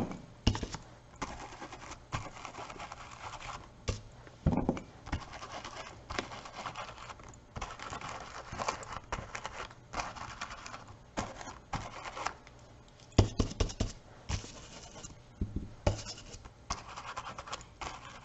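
A stencil brush scrubbing and dabbing metallic gilding paste through a stencil onto a canvas panel: scratchy brushing in short spells with scattered light knocks, a few of them bunched together near the middle and again later.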